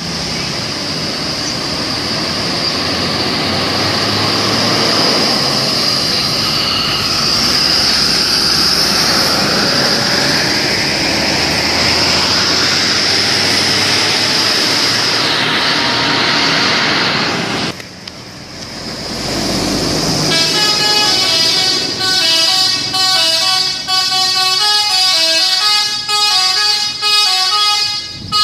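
A steady loud rushing noise for most of the first two-thirds, then a brief drop. A Haryanto bus's multi-tone telolet horn then plays a tune, note after note.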